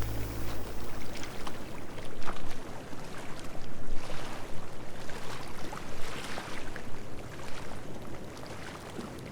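Sea waves breaking and washing up the beach, the surf hiss swelling and ebbing every second or two with small crackles of fizzing water. The last of a piece of music dies away in the first second.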